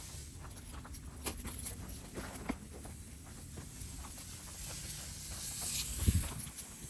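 Bobcat S450 skid steer's diesel engine running as a low, steady rumble, with scattered small clicks and knocks of concrete rubble and one heavier thump about six seconds in.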